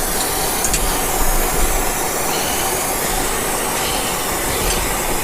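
Oxy-acetylene cutting torch flame running with a steady, loud hiss and low rush while it heats a steel rod for bending.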